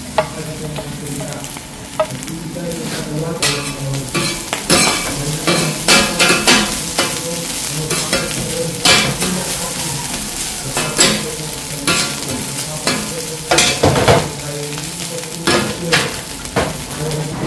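Fried rice sizzling on a hot flat-top griddle while two metal spatulas stir and scrape it. From about three seconds in, repeated clanks and scrapes of the steel blades on the griddle plate ring out over the steady sizzle.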